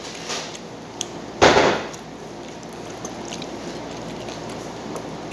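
A person eating noodles by hand close to the microphone: a few small clicks, and one short, loud rustling burst about a second and a half in.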